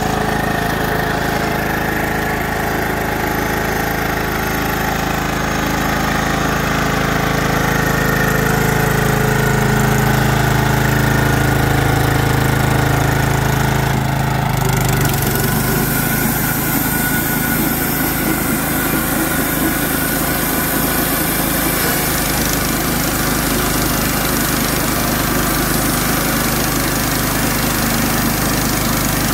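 Engine of a Clarke model 50 portable bandsaw mill running steadily, its note swelling slightly about a third of the way in. About halfway through a steady high hiss joins as the band blade saws through a white pine log.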